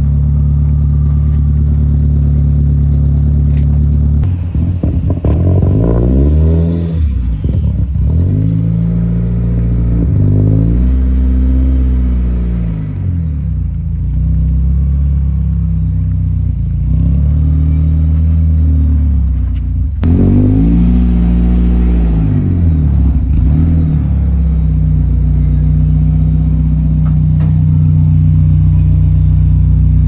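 Supercharged Mazda Miata's 1.8-litre four-cylinder engine running, revved up and back down several times between steady stretches of idle.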